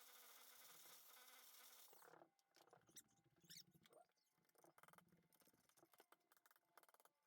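Near silence: a faint steady hiss cuts off about two seconds in, then faint scattered ticks and scrapes.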